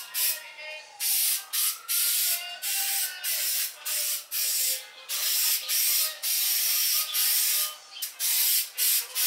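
Aerosol spray can of adhesion promoter hissing in a rapid series of short bursts, about two a second, as it is sprayed onto a masked panel to prepare it for paint.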